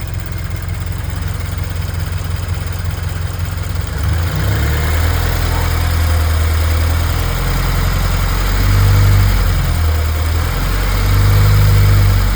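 Toyota 86's flat-four boxer engine idling, then running a little faster from about four seconds in, with two brief light revs in the second half.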